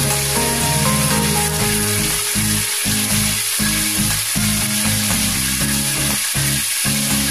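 Hot oil sizzling steadily in a stainless steel pot on the stove, with background music underneath.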